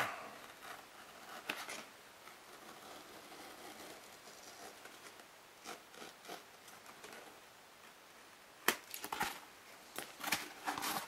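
Faint rasping of a cutter knife blade slicing through the edge of a soft foam mask part. A cluster of sharp clicks and rustles comes near the end as the foam piece is handled.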